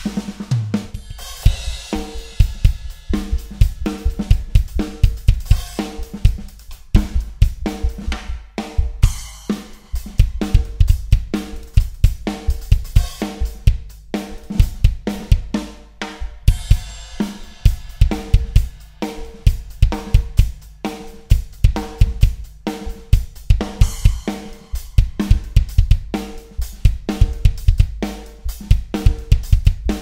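Drum kit played hard and fast: Tama Starclassic Bubinga bass drum and toms with a Pearl Sensitone brass snare and Zildjian cymbals, close-miked. Rapid bass drum strokes run under a regular snare beat, with cymbal crashes every few seconds.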